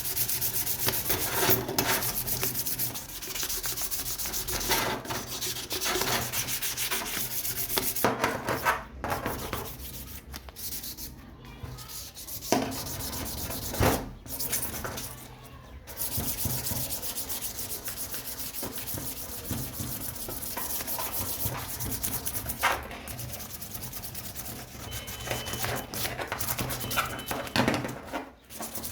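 Sanding: abrasive rubbing and scraping on a part of an old oil lamp being restored. It breaks off briefly a few times, with a couple of sharp knocks about halfway through.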